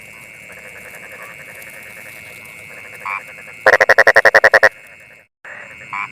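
A frog calling: one loud call a little past halfway, a rapid train of about a dozen croaks lasting about a second, with shorter chirps before it and near the end, over a steady high drone.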